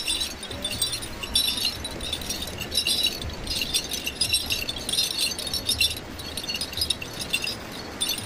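Small bells or metal fittings on a walking horse's harness jingling in bunches with its steps, weaker after about six seconds.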